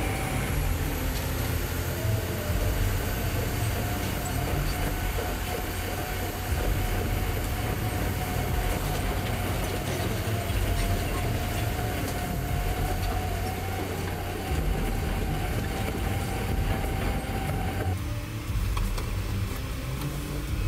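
Caterpillar D11T bulldozer's big diesel engine running with a steady low rumble and a held whine as the dozer drives its tracks over a pickup truck and crushes it. The whine drops away near the end.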